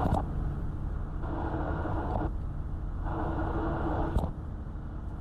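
Engine and road noise from a vehicle being driven: a steady low rumble, with a higher engine note that comes and goes about every second. There is a sharp click about four seconds in.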